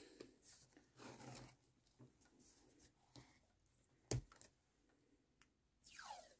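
Faint handling of paper and washi tape on a spiral-bound art journal page: soft rustles, one sharp tap about four seconds in, and a short falling swish near the end.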